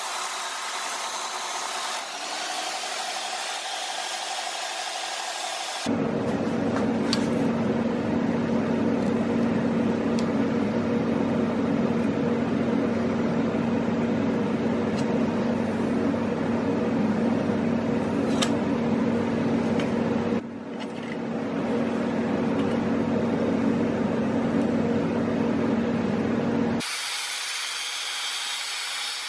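A power tool grinding metal. A thinner, hissing grind for the first six seconds, then a louder, lower steady grind for about twenty seconds with a brief dip partway, before the hissing sound returns near the end.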